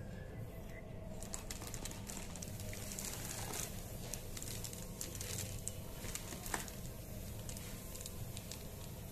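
Hands handling headphone packaging: scattered small clicks and crinkles over a steady low hum.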